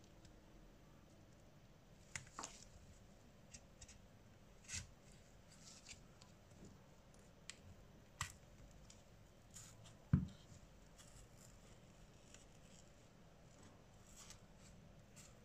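Scattered small clicks and taps from hand tools working on a smartphone during a screen repair, with one louder knock about ten seconds in.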